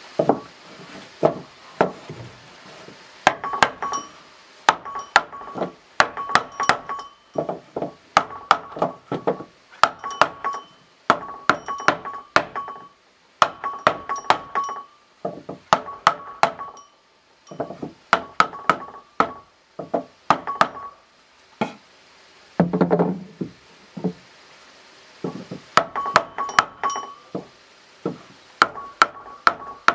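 Hammer tapping nails through a wooden strip into a door frame: quick bursts of light, ringing metal-on-metal taps with short pauses between bursts. There is one duller knock about two-thirds of the way through.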